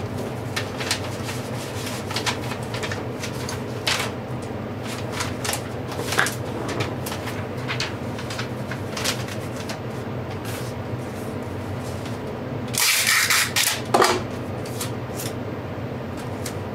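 Small clicks and taps of fingers and a tool on an opened iPad's metal housing, cables and connectors, over a steady background hum. About 13 seconds in there is a short, louder scraping rasp, then one more sharp sound a second later.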